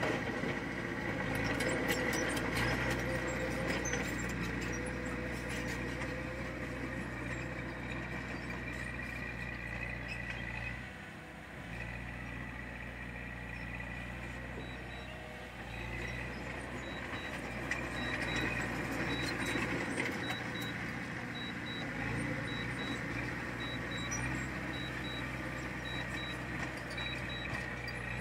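Heavy diesel machinery engine running steadily under load. In the second half, a reversing alarm beeps at an even pace over it.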